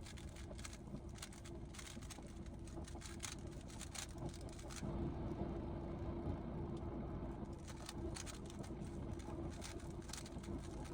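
Rubik's cube being turned, its plastic layers clicking in quick, irregular runs over a steady low hum. The clicks pause for a few seconds in the middle while a low rumble grows louder.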